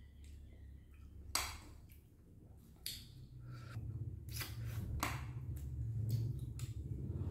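Close-miked eating of noodle soup: chewing and mouth noises, with two sharp clicks of chopsticks against the glass bowl in the first three seconds. The mouth sounds grow louder in the second half.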